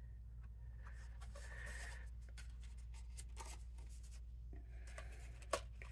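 Faint scratching and rustling of cardstock and thin metal cutting dies being handled and set in place on a die-cutting plate, with a sharp click about five and a half seconds in, over a steady low hum.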